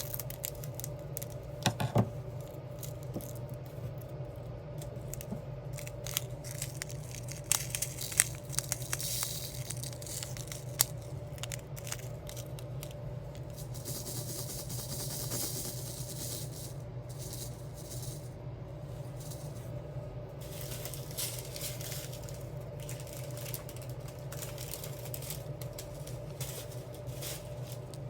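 Diamond-art crafting handling: scattered small clicks and taps with some plastic crinkling, as gems and sticker sheets are worked by hand. A steady low hum runs underneath.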